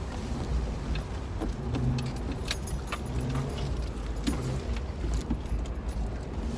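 Jeep driving off-road: a steady low engine and road rumble, with a hum that comes and goes, and frequent sharp rattling clicks as it bounces over rough ground.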